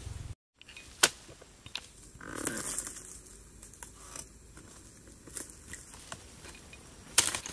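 Scattered sharp knocks, crunching and tearing of a dodos, a long-poled chisel, being jabbed into the stalks of an oil palm's fronds and fruit bunches, with a louder crackling burst near the end.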